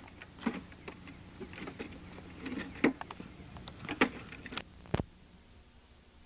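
Hard plastic wheels of a child's Hot Wheels big-wheel tricycle rattling and clattering over brick paving in irregular knocks, with a sharp knock about five seconds in. After that only a low steady hum is left.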